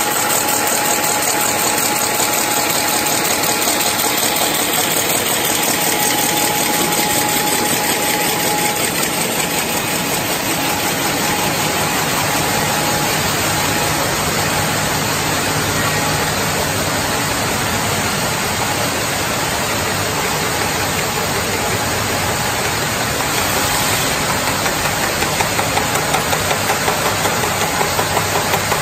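FHZ-420 automatic can body welding, coating and curing line running: dense, rapid, steady mechanical clatter. A faint steady whine is heard for the first several seconds, and the noise pulses evenly near the end.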